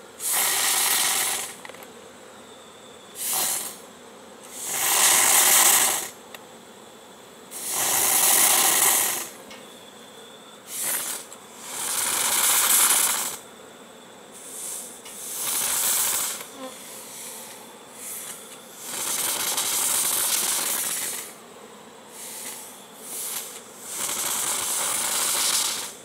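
Burgess propane insect fogger being pumped, each stroke sending a loud hissing burst of oxalic acid fog into the beehive entrance. There are about ten bursts, each one to two seconds long, at irregular spacing.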